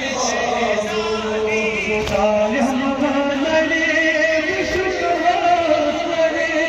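A group of men chanting a Kashmiri noha, a Shia mourning lament, in unison. Long held notes waver throughout, with no break in the singing.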